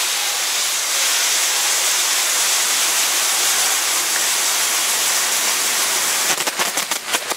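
Spark fountains on a castillo fireworks tower hissing steadily as their frames spin. Near the end comes a quick run of sharp crackling pops.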